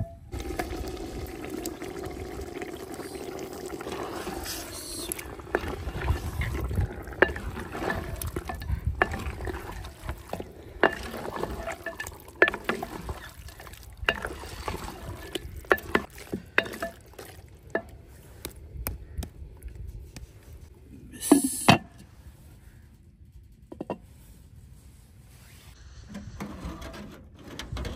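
Meat sizzling in a hot clay cooking pot, with a wooden spoon knocking and scraping against the pot as the meat is stirred. A single louder clatter comes about three-quarters of the way through.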